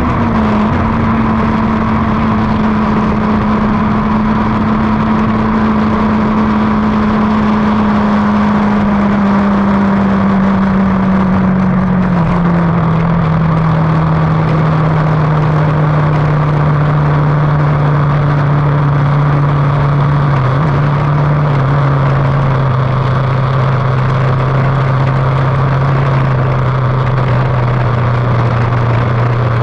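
Lightning sprint car engine running steadily, its pitch sinking slowly with two small steps down, over a steady rush of noise.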